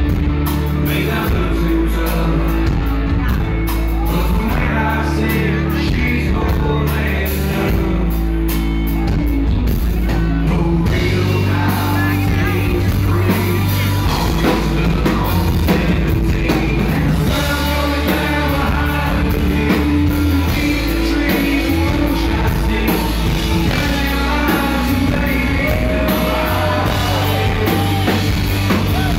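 Live country-rock song: a singer's amplified vocals over a band with a heavy, steady bass line.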